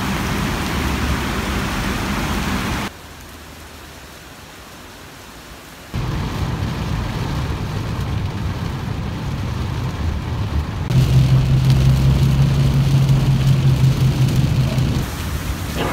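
Heavy rain, in several cut-together takes: first pouring onto wet paving, then rain on a taxi heard from inside the cabin. It drops to a quieter hiss about three seconds in, comes back a few seconds later, and a steady low hum joins in for the last few seconds.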